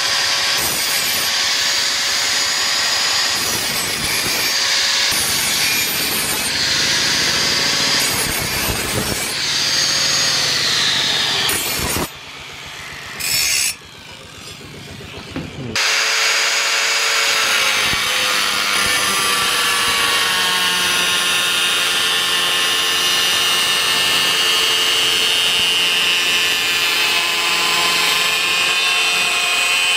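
Electric angle grinder running and grinding a steel knife blade made from a chainsaw bar, first with a sanding disc and later with a thin grinding disc on the edge. The grinding stops for a few seconds about halfway through, then the steady motor whine and grinding start again.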